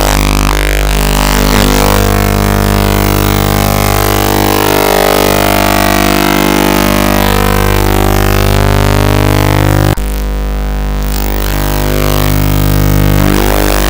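Loud, heavily distorted electronic drone music: a thick held chord with sweeping, swirling tones above it. About ten seconds in it breaks off with a click, comes back thinner and builds up again.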